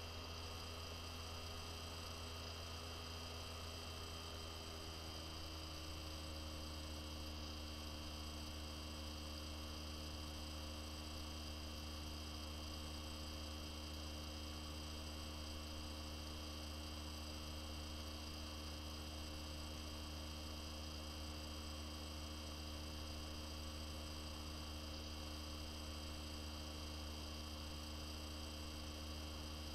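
Dead air: a steady low electrical hum with a few faint higher steady tones over it, and nothing else.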